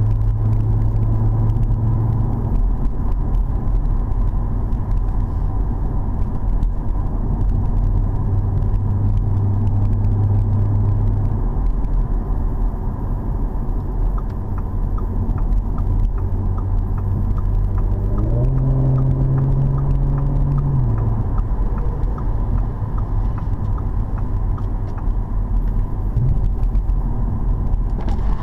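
Audi S4 B9 Avant's V6 engine heard from inside the cabin at highway speed: a steady drone over tyre and road noise. About two-thirds of the way in the engine note rises in pitch for a couple of seconds as the car pulls harder, then settles back to a cruise.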